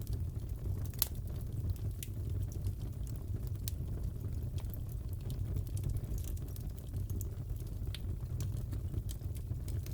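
Wood fire crackling in a fireplace: a steady low rumble of flames with scattered sharp pops and snaps, the loudest about a second in.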